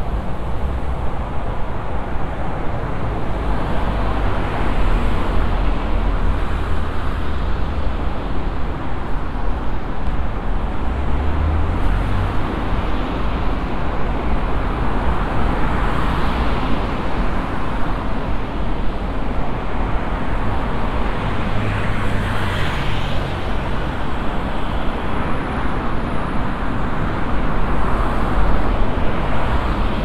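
Steady road traffic on a multi-lane city street, with cars passing close by every few seconds and the sound swelling and fading as each goes by.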